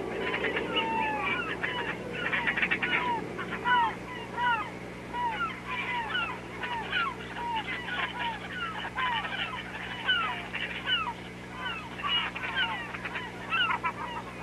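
A flock of birds calling: many short calls, several a second and overlapping, over a steady low hum.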